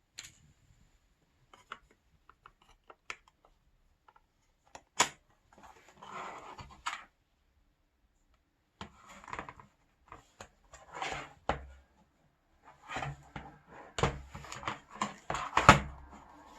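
Scattered sharp clicks and knocks with patches of rustling, the sound of something being handled, growing busier and louder in the last few seconds.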